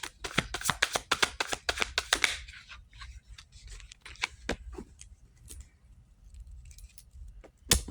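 Cards being shuffled by hand: a fast run of flicking clicks for about two seconds, then scattered softer clicks, and one sharper knock near the end.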